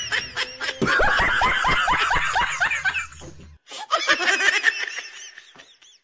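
High-pitched laughter in a quick string of short rising-and-falling notes, in two runs with a brief break about three and a half seconds in.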